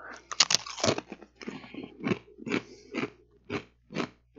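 A man biting into a Pringles Scorchin' Wavy Loaded Nacho chip close to a headset microphone, a quick cluster of crisp cracks, then chewing it with regular crunches about twice a second.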